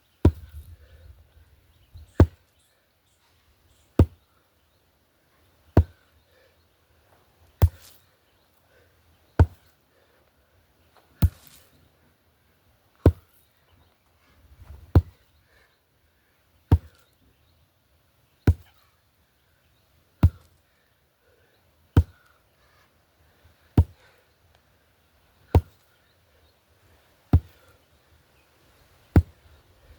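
Sledgehammer strikes at a steady pace, one about every second and three-quarters, seventeen in all.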